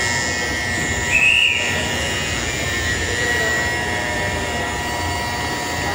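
A short whistle blast, rising then falling, about a second in: the platform staff's signal that boarding is over. Underneath, a steady high tone and the hum of a Tokaido Shinkansen train standing at the platform.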